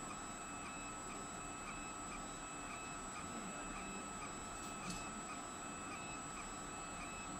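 CO2 laser marking machine running while marking acrylic: a steady high machine whine with regular faint ticks, and one sharp click about five seconds in.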